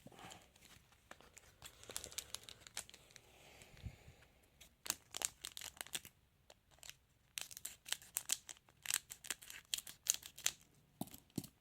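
A trading-card packet wrapper being torn open and crinkled by hand, in a run of sharp crackles that grows denser in the second half.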